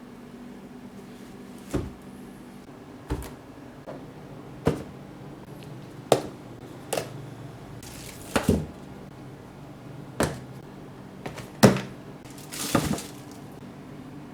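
A series of sharp knocks and clacks at irregular intervals, roughly one a second, over a steady low hum.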